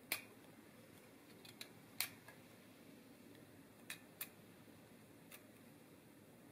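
A metal swivel peeler stripping peel from a lemon: a handful of short, sharp clicks, the loudest just after the start and about two seconds in, over near silence.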